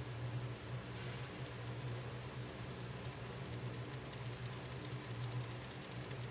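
Small plastic toy hair rollers handled between the fingers, giving a rapid run of light plastic clicks that starts about a second in and grows denser after the middle, over a steady low hum.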